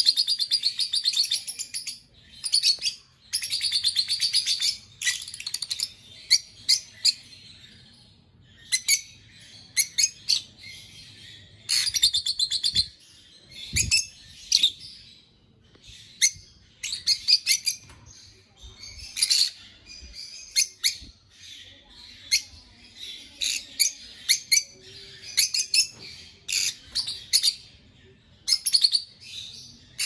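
Peach-faced lovebirds chattering: rapid, high-pitched chirps and squeaks in short bursts, one after another. A single low thump sounds about halfway through.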